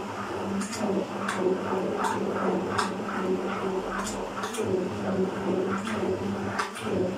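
Hand-held stick blender running steadily in a tall cup, blending a thick milk, cream and frozen-strawberry ice-cream mix. The motor hums at an even pitch, with repeated sharp knocks of the blender head in the cup about once or twice a second.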